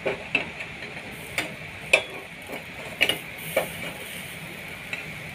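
A metal ladle knocking and clinking against the gas stove burner and the hot charcoal pieces as the embers are taken up, with about seven irregular sharp knocks over a steady hiss.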